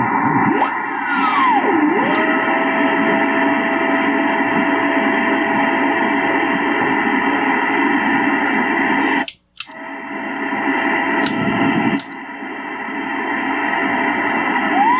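Drake 2-B communications receiver's speaker giving out band hiss and static while being tuned. A heterodyne whistle glides down and settles into a steady tone. The audio cuts out briefly about two-thirds of the way through, with a few sharp clicks.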